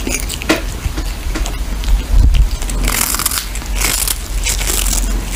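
Kitten gnawing and crunching on a dried fish held in its paws, close to the microphone: irregular crunchy bites.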